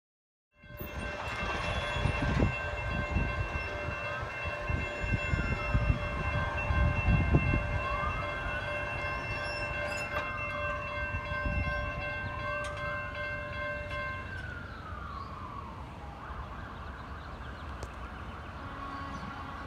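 An emergency vehicle's siren on a slow wail, rising and falling about three times over a steady ringing tone. Both stop about two-thirds of the way through, and low rumbling is heavy in the first half.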